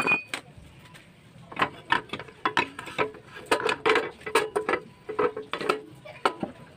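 Yamaha Mio scooter's CVT cover being fitted back onto the engine casing: a run of irregular knocks and clatters as the cover is pushed and settled into place.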